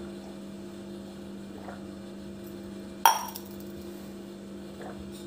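A steel drinking tumbler is set down with one sharp clink about three seconds in, over a steady low hum.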